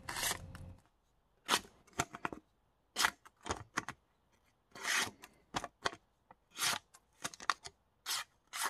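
Freshly sharpened folding-knife blade slicing through a sheet of thin paper. About a dozen short hissing cuts come at irregular intervals, the sound of a very sharp edge passing cleanly through the paper.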